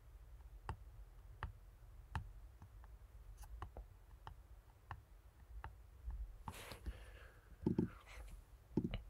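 Faint, sharp taps about every three-quarters of a second, made by a fingertip being lifted and rested again and again on a MacBook's Touch ID key during fingerprint enrollment. A couple of duller knocks come near the end.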